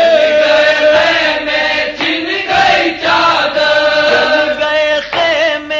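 Voices chanting a noha, a Shia lament, in long drawn-out held notes.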